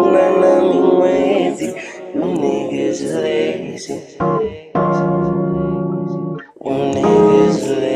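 Music: electric keyboard chords held and changed every second or two, with a singing voice over them in places and a short break in the sound about six and a half seconds in.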